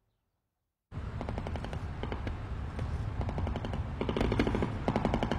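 Bursts of rapid automatic gunfire, in several groups of quick shots a second or so apart, heard over the low rumble of a car being driven. It all starts abruptly about a second in, after silence.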